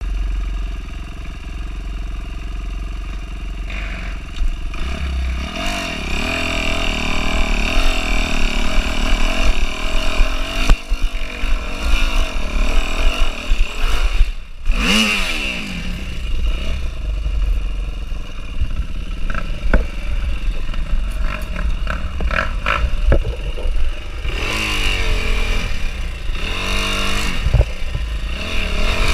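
Kawasaki dirt bike engine on a steep, rocky trail climb, revving up and down with the throttle, with sharp revs about halfway through and again near the end. Knocks and scrapes of the bike over rocks come in a run a little after the middle.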